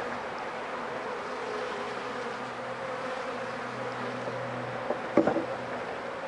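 Honeybees buzzing steadily around an opened hive. About five seconds in come a few sharp knocks, the metal hive tool striking the wooden hive box.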